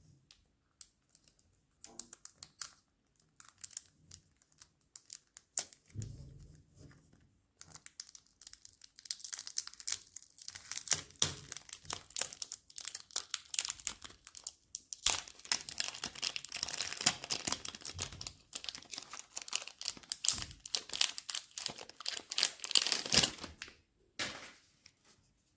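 Perfume box packaging being unwrapped by hand: wrapping crinkling and tearing amid small clicks and taps of handling. It is sparse at first and turns into dense, continuous crinkling through most of the second half.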